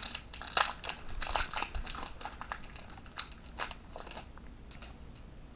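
A trading-card pack wrapper being torn open and handled: a run of short, crisp crackles that thins out after about four seconds.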